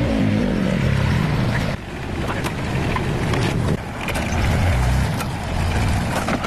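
A car engine running, its pitch shifting, with a few sharp clicks and two sudden dips in level.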